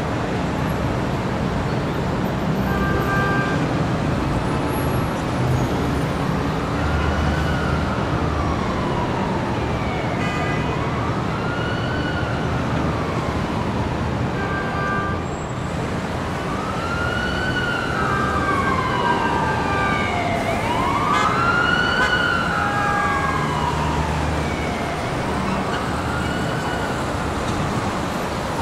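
Emergency vehicle siren wailing, its pitch slowly rising and falling about every four to five seconds from about six seconds in, over steady street traffic noise.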